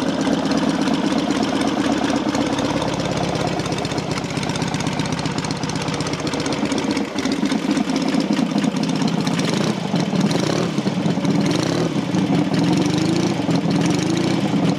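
Matchless G12's freshly rebuilt 650 cc parallel-twin engine running at a fast idle while it warms up from cold. Its speed wavers a little in the second half.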